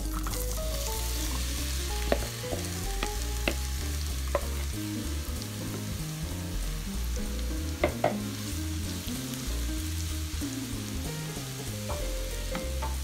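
Melted butter sizzling in a pan as diced apples are tipped in from a bowl and scraped out with a wooden spoon. There are several sharp knocks of the spoon against the bowl and pan, the loudest a double knock about eight seconds in.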